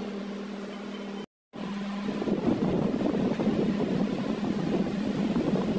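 Steady mechanical hum of workshop machinery. It cuts out briefly a little over a second in, then returns as a louder, rougher steady running noise.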